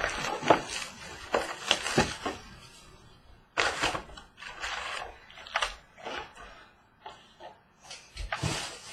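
Crinkling plastic wrap and handling of a cardboard trading-card box, in irregular crackly rustles with sharp clicks and short pauses.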